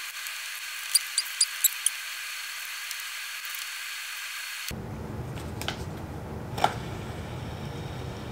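Small sharp clicks as wheels and axles are fitted onto an inline skate frame: a quick run of five about a second in, then a faint click and a single louder knock near the end, over steady background hiss.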